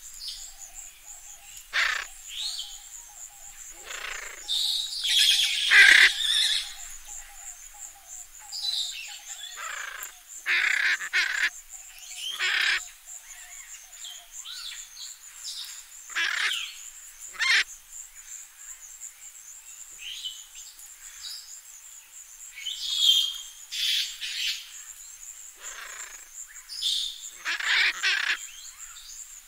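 Parrots and macaws giving harsh squawks and screeches, one call after another, the loudest run of calls about five seconds in. A steady, pulsing high buzz carries on underneath.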